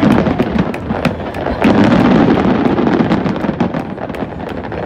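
Aerial fireworks display: a dense run of rapid crackling pops from bursting shells, heaviest in the first couple of seconds.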